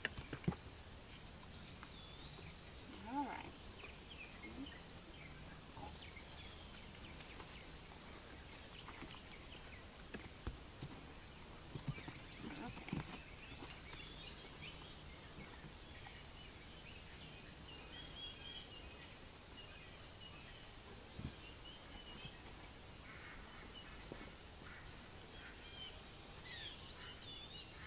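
Quiet outdoor farm ambience: scattered faint bird chirps and a steady high hum, broken by a few soft knocks.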